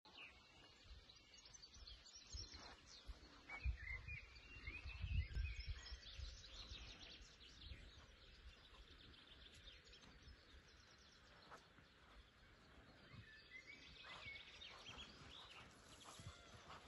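Faint outdoor birdsong, many short chirping phrases from several birds, with a low rumble a few seconds in.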